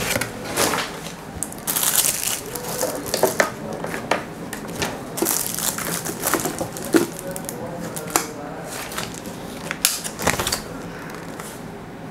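Thin plastic packaging crinkling and rustling as it is handled, with irregular sharp clicks and taps. It gets quieter near the end.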